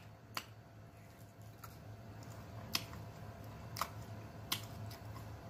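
Close-miked chewing of a thick piece of pork chop: quiet, with a few sharp wet mouth clicks and smacks spread out over a low steady hum.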